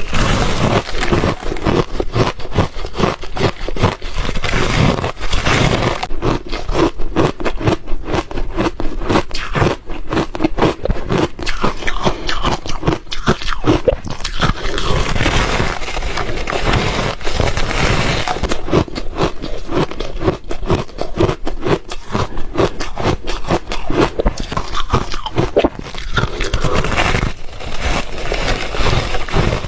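Close-miked chewing of crunchy refrozen ice: a dense, unbroken run of sharp crunches and crackles as the ice is bitten and ground between the teeth.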